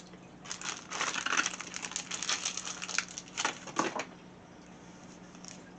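Plastic packaging crinkling and crackling in a run of irregular rustles and small clicks, as the small plastic parts bags of a Beyblade booster are handled and opened, dying away after about four seconds.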